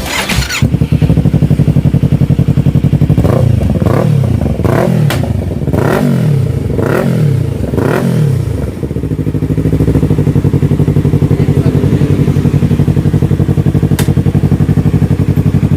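Yamaha R3's parallel-twin engine running through an aftermarket slip-on exhaust: idling, then blipped about seven times in quick succession, each rev rising and falling in pitch, before it settles back to a steady idle. A single sharp click near the end.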